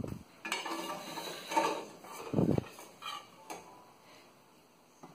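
Metal spoon scraping and knocking against a cooking pot while scooping boiled quail eggs out of the water, several short clinks and scrapes over the first three seconds or so.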